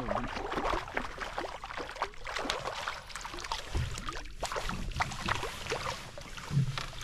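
Lake water splashing and dripping beside a canoe as a small brook trout is handled in a landing net and let go over the side, with scattered small clicks and knocks.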